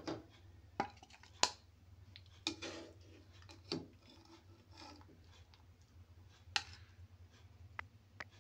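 Wooden spatula scraping and knocking against a nonstick frying pan and a ceramic plate as cooked lentils are scooped out and served: a scatter of short, sharp scrapes and taps at irregular intervals over a low steady hum.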